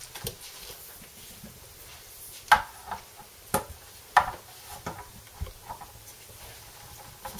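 A guitar neck knocking and tapping against the guitar body as its heel is set into the neck pocket: a few sharp wooden knocks, the loudest about two and a half seconds in, with lighter taps and handling sounds between.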